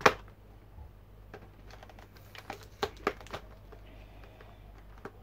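Clear plastic blister tray and packaging bag being handled while accessories are taken out: one sharp plastic click at the very start, then a run of light clicks and crackles between about two and a half and three and a half seconds in.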